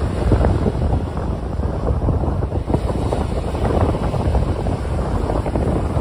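Small waves breaking and washing up a sandy beach, with wind buffeting the microphone in a steady low rumble.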